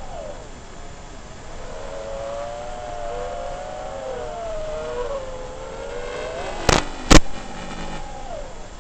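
FPV quadcopter's brushless motors and propellers whining, the pitch rising and falling with the throttle. Two sharp, very loud knocks come close together about two-thirds of the way in, and the motor pitch drops after them.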